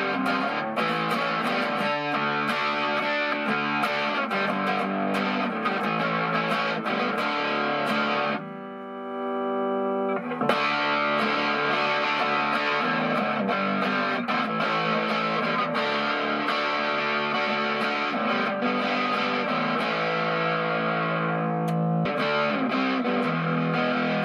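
1992 Gibson Les Paul electric guitar played with distortion: fast picked riffs and chords, with one chord left to ring out for about two seconds near the middle. The guitar is being play-tested, now whole and playable again after its broken headstock was repaired.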